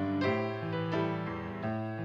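Grand piano playing a slow piece, with a new chord struck about every half second and each one ringing on.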